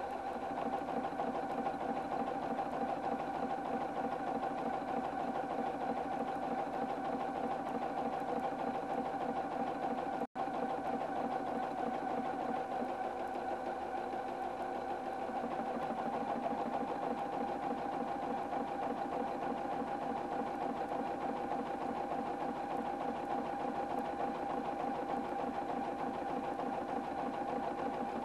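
Husqvarna Viking Platinum 770 computerized sewing machine running steadily, stitching an automatic buttonhole with its sensor buttonhole foot: a steady motor tone over the fast, even rhythm of the needle. The sound drops out for a moment about ten seconds in.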